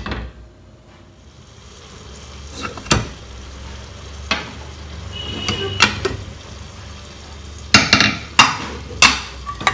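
Metal knocks and clinks of a steel ladle against an aluminium pressure cooker: a few single knocks, then a quick run of sharp, louder clinks near the end. A faint low hum runs under the middle part.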